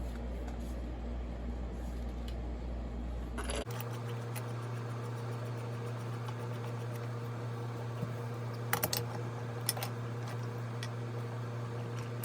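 Steady low electrical hum that jumps abruptly to a higher pitch a few seconds in, with a few light clicks of small parts being handled later on.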